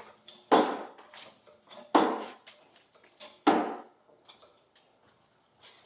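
Car jack being pumped to lift the car, giving three sharp metallic clanks about a second and a half apart, then a few fainter knocks.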